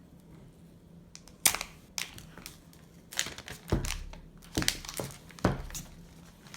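Plastic wrap on a new iPhone box being torn off and crumpled: a string of sharp crinkling rustles, starting about a second and a half in and stopping shortly before the end.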